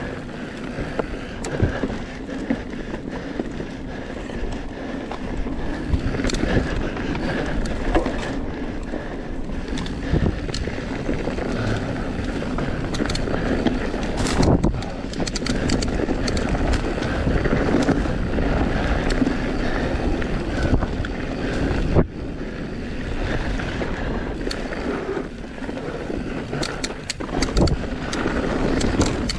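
Electric mountain bike riding fast down a dirt forest trail: steady wind noise on the microphone and tyres rolling over dirt and fallen leaves, with frequent rattles and knocks from the bike over bumps. The sharpest knock comes about 22 seconds in.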